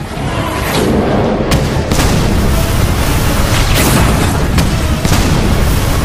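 Cinematic boom and impact sound effects for an animated fight: a deep continuous rumble with several sharp hits, the first about a second and a half in and more through the rest, over background music.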